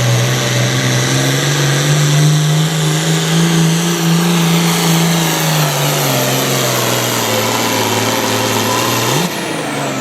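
International Harvester 1066 pulling tractor's diesel engine running wide open under load as it pulls the sled down the track; its pitch sags in the second half, then drops sharply about nine seconds in as the pull ends.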